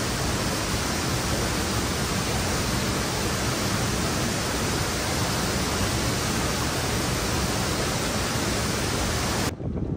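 Steady, even rush of falling water from a large waterfall with several cascades, cutting off suddenly near the end.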